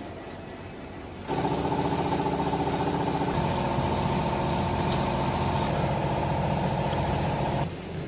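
A motor-driven pump on the baling equipment runs steadily with a loud hum. It starts abruptly about a second in and cuts off shortly before the end, over a fainter steady machine hum.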